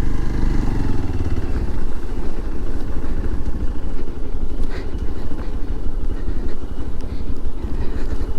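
Hero Xpulse's single-cylinder engine running steadily while the motorcycle is ridden along an off-road dirt trail.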